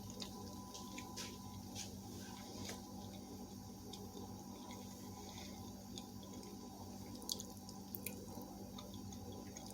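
Faint, scattered small clicks and ticks over a low steady hum.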